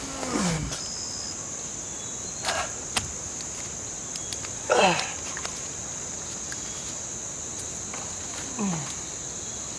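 Steady high-pitched drone of insects in the forest, likely crickets. Four short falling voice sounds from a man break in, about a second or two apart.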